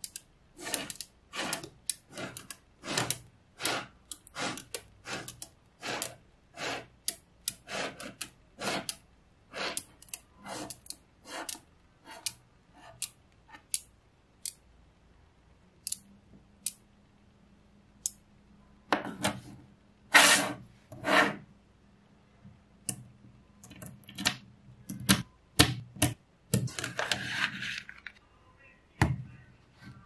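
Small magnetic balls clicking sharply as they snap onto one another, about two clicks a second at first, then more sparsely, with a louder cluster of clicks and a brief rustling scrape near the end.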